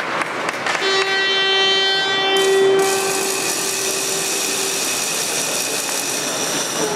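A horn blowing one long steady note, starting about a second in and holding for about four seconds, over the general hubbub of an ice rink.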